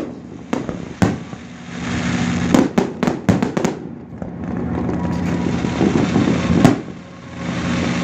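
Fireworks going off: single bangs about half a second and a second in, a quick run of cracks and bangs in the middle, and one more bang near the end. A steady low drone sits underneath.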